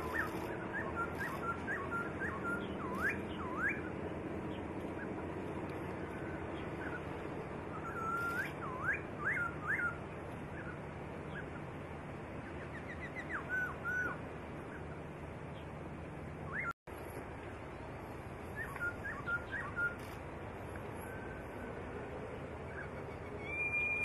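Black-throated laughingthrush singing: short phrases of clear whistles, with rising and falling notes and quick trills, in bursts every few seconds over a steady background noise.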